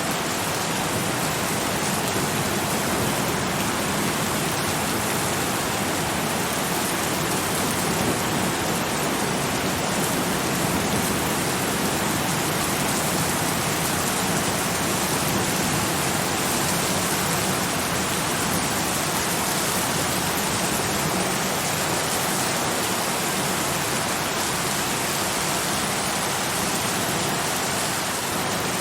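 Steady heavy rainfall: a dense, even hiss of rain with no separate drops or breaks standing out.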